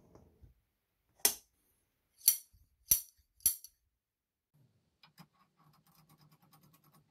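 Sharp, ringing metallic clinks of a steel slide hammer being handled on a metal workbench, four knocks in quick succession. Near the end comes faint, rapid rattling.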